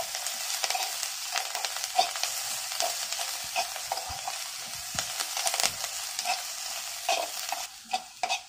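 Chopped onions with garlic and ginger frying in oil in a kadhai, sizzling steadily as they brown, with a spatula stirring and scraping against the pan in short clicks. The sizzle drops away near the end.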